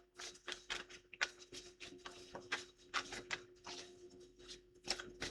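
Tarot cards being shuffled and handled: an irregular run of soft papery clicks, snaps and rustles, over a faint steady hum.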